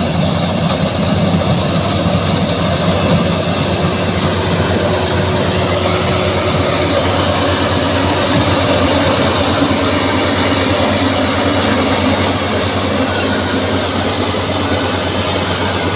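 Bimo Maxxi 102 combine harvester running steadily: a loud, even engine and machinery din.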